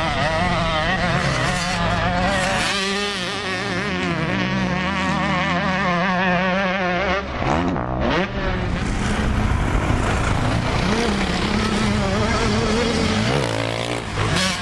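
Motocross bike engines revving on a dirt track, several engines overlapping and rising and falling in pitch as the throttle opens and closes. A sharp rise and fall in pitch comes about halfway through.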